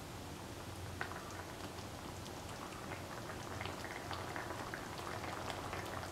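Prawn curry in coconut milk simmering on low heat in the pan, bubbling with small scattered pops that come more often from about halfway through, over a steady low hum.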